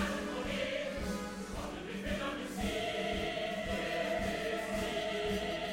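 Musical-theatre ensemble choir singing long held notes with the orchestra.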